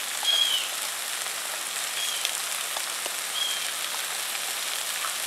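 Corn and tomatoes frying in a black pot: a steady sizzle with a few faint pops.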